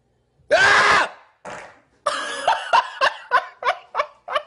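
A loud, sudden vocal outburst about half a second in, then a shorter one, followed from about two seconds in by people laughing in rhythmic bursts, about three a second.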